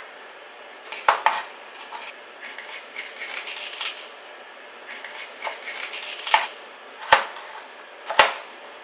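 Chef's knife dicing a red bell pepper on a hard cutting surface: irregular sharp knife strikes against the board, with softer scraping and rustling of the pieces between, busiest in the middle.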